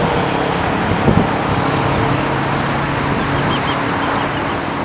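Jet engines of an Airbus A320-family airliner at low power as it flares and touches down, a steady rumble with a faint hum.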